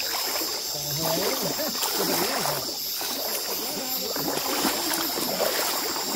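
River water moving and splashing under a steady high-pitched chorus of night insects, with indistinct voices murmuring through the middle.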